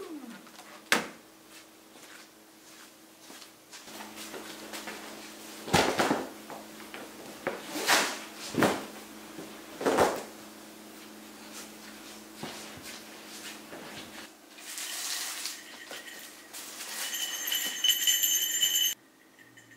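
A Dyson cordless stick vacuum's motor winds down in a falling whine right at the start. Then come scattered knocks, thumps and rustles of handling a foam play mat and a wooden baby play gym, over a faint steady hum. A brief high-pitched whine follows near the end.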